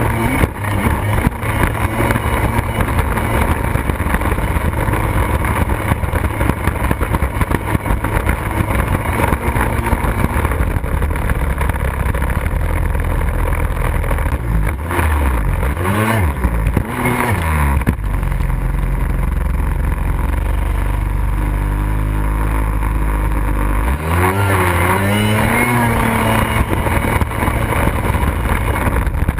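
Kawasaki X2 jet ski's modified 750 two-stroke twin with an expansion pipe running hard under way. The engine pitch falls and climbs back a few times just past the middle and again near the end as the throttle is eased and reopened.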